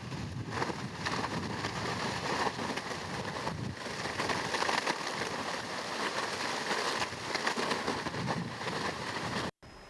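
Steady rushing noise with fine crackling from an erupting lava spatter vent, surging unevenly in level, cut off sharply near the end.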